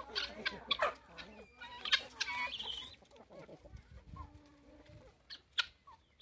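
Backyard chickens clucking and calling, busiest in the first three seconds, then fainter with only a few sharp chirps.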